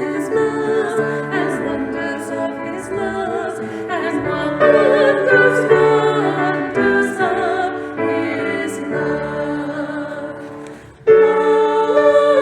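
Female vocal trio singing a Christmas song in harmony with piano accompaniment. A new, louder phrase starts near the end.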